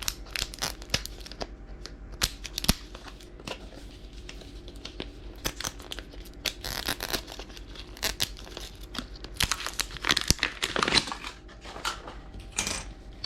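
Small plastic packaging being torn open and crinkled by hand, in bursts of sharp crackling and clicks.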